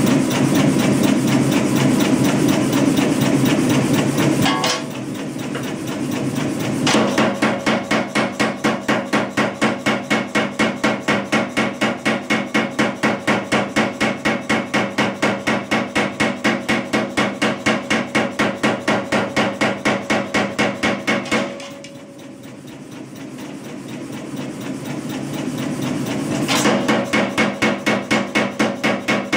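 Kuhn self-contained air power hammer hammering red-hot steel through a handled top tool, in fast, even runs of about four blows a second. The blows stop twice, briefly about five seconds in and for several seconds after about twenty-one seconds, while the machine keeps running more quietly.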